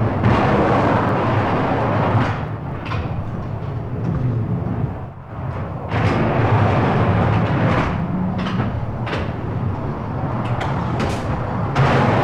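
Fairground ride noise: a continuous rumbling, clattering din with repeated knocks and some music in the background, dipping briefly about halfway through.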